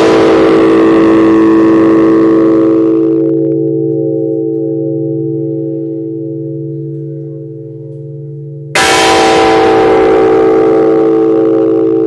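Bronze church bell struck once by its clapper on a hand-pulled rope, about three-quarters of the way through. Before that stroke, the ringing of the previous stroke fades slowly to a long, steady low hum. This is a slow death knell tolled for a woman.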